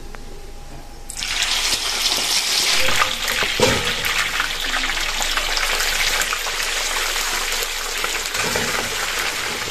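Pieces of boiled pork leg (pata) going into hot oil in a wok for deep-frying: the oil bursts into a loud, steady sizzle about a second in and keeps bubbling, with a couple of knocks a few seconds in.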